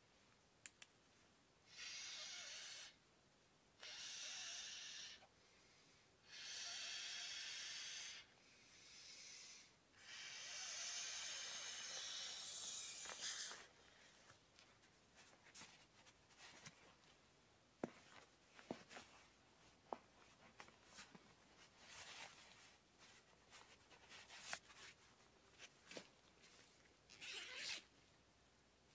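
Camping gear being handled: a series of short hissing swishes lasting one to three seconds each, the longest about ten seconds in, then scattered light clicks and taps with one more brief swish near the end.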